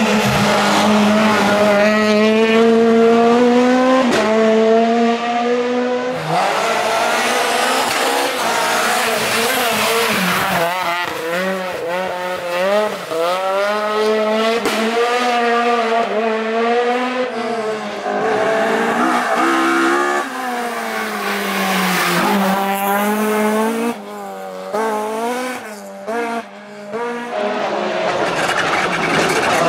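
Rally cars at full attack on a stage: engines revving hard and changing gear, pitch climbing and dropping again and again, with tyres squealing in the corners. From about 24 to 27 seconds in, the engine sound turns choppy and cuts in and out in short bursts.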